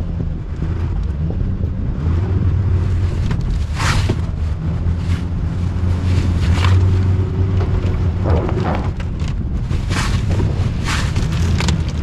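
Car engine running under load while a front tyre churns through deep snow and slips for grip, with wind buffeting the microphone. A few short sharp crunches cut through the steady low rumble.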